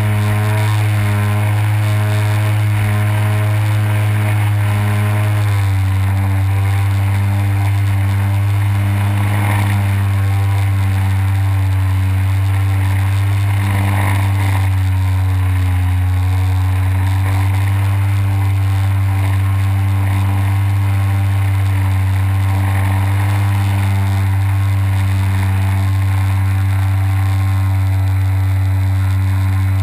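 Small aircraft's motor and propeller droning steadily in flight, heard close from the aircraft itself; the pitch drops a little about five seconds in as the throttle changes, then holds steady.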